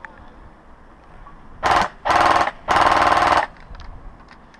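Airsoft electric gun firing three full-auto bursts in quick succession, each longer than the last, a fast rattle of shots.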